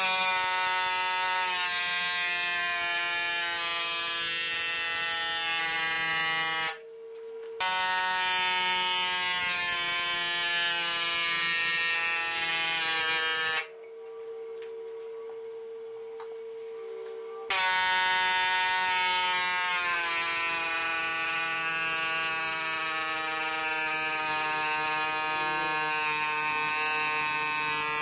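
Pneumatic air hammer buzzing as it drives a copper ground rod into the ground, running in long bursts with its pitch drifting up and down. It stops briefly about seven seconds in and again for about four seconds around the middle, while a steady hum carries on underneath.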